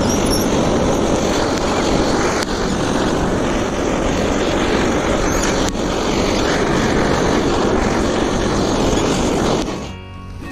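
Handheld butane gas torch burning with a steady, loud hiss as its flame plays over tomato skins, cutting off suddenly near the end.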